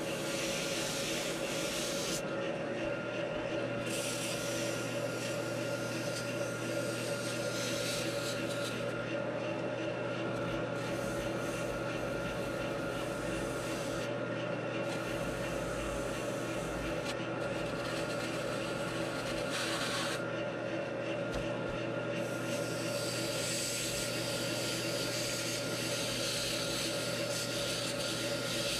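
Grizzly G0462 variable-speed wood lathe running with a steady hum, spindle at about 540 rpm, while sandpaper is pressed against a spinning pink foam blank. The sanding hiss comes and goes in stretches of a few seconds.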